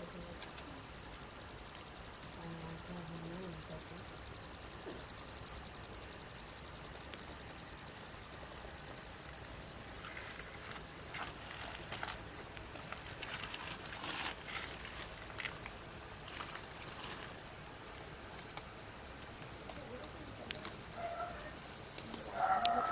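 Insects chirring steadily in one continuous high-pitched tone, with a few faint clicks.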